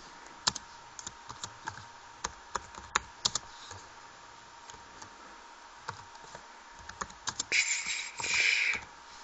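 Keys tapped irregularly on a Cr-48 laptop keyboard while a long Wi-Fi password is typed, with single clicks spread out and coming closer together toward the end. Near the end there is a louder brief hiss or rustle.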